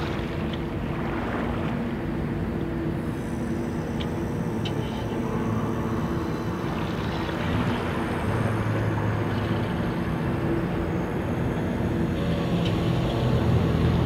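Steady low drone of a moored cargo ship's machinery running, heard across harbour water, with a general hum of port noise around it. The low drone grows a little louder near the end.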